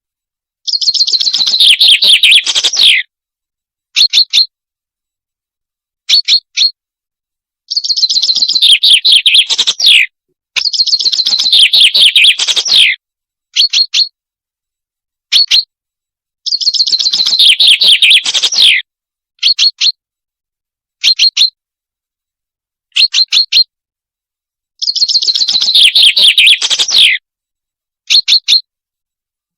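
Recorded call of the bird known in Arabic as salanj, played as a hunting lure: five long phrases of rapid notes falling in pitch, with short sharp chirps in twos and threes between them.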